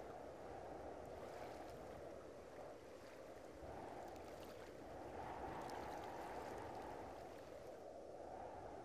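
Steady low rushing outdoor noise with no distinct events, swelling and easing a few times.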